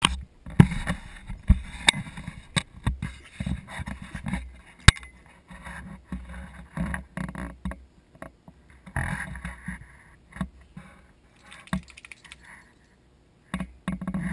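Handling noise on a GoPro Hero 2 camera: sharp knocks and scuffs right against the camera, thickest in the first five seconds, then quieter scuffing and rustling with a brief quiet spell near the end.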